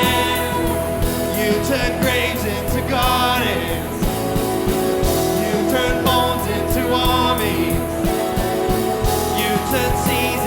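Live worship band playing a contemporary worship song, steady and full, with a singing voice over sustained keys and bass.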